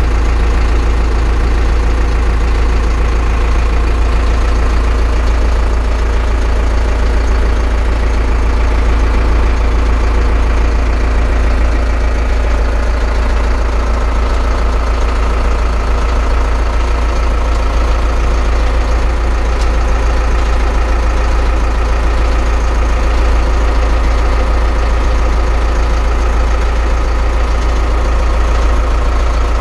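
Zetor Forterra 150 HD tractor's four-cylinder diesel engine idling steadily, heard from inside the cab.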